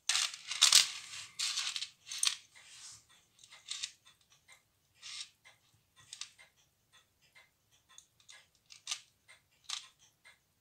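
Tissot pocket watch ticking at about three ticks a second, with fingers in rubber finger cots handling and turning its engraved metal case: rubbing and clicking, heaviest in the first few seconds, and two sharper clicks near the end.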